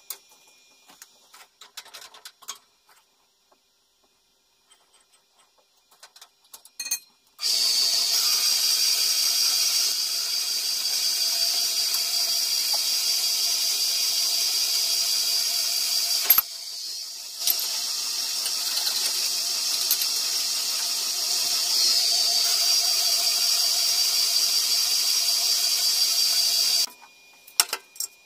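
Horizontal metal-cutting band saw running and cutting through a flat steel bar: a loud, steady, high-pitched whine that starts about seven seconds in, dips briefly about two-thirds of the way through, and stops shortly before the end. Before it, a few light metal clicks as the bar is set in the vise.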